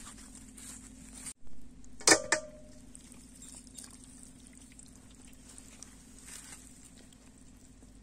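Two sharp knocks against a stainless steel bowl about two seconds in, the second ringing briefly, amid faint wet handling of raw goat tripe and intestines.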